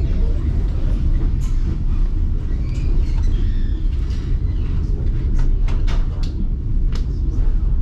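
Moving passenger train heard from on board: a steady low rumble, with a few sharp clicks and knocks in the second half.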